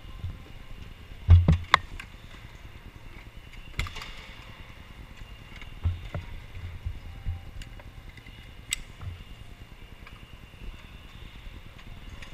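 Electric indoor go-kart moving off along the pit lane, heard from the driver's helmet: a low rumble of rolling and air noise with a faint steady motor whine. Several sharp knocks break through it, the loudest about a second and a half in.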